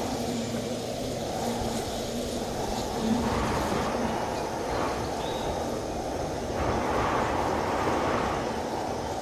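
Strong wind rushing and buffeting, in swells, with a steady low hum underneath.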